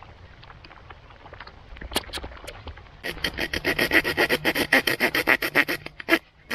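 Small folding saw of a Victorinox pocket knife cutting into a thin piece of wood: rapid, even back-and-forth strokes, about seven a second, starting about three seconds in and stopping shortly before the end.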